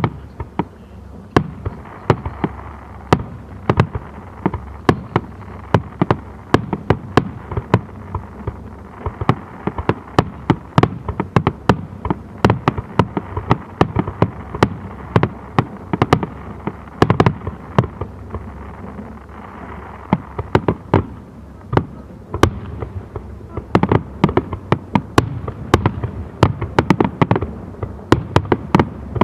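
Fireworks display: a dense, rapid run of firework shell bangs, several a second, with a rumble between them, heard from about 500 m from the launch site.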